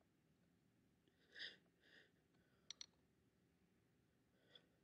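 Near silence in a small room, broken by a soft breath about a second and a half in and two quick faint clicks just before the middle.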